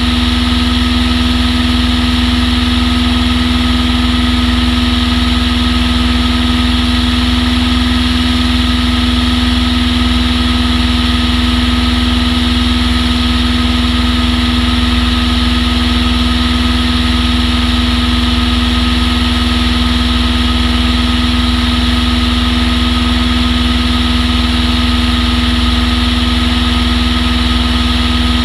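Rutan Long-EZ's pusher piston engine and propeller running at a steady speed, one strong unchanging drone.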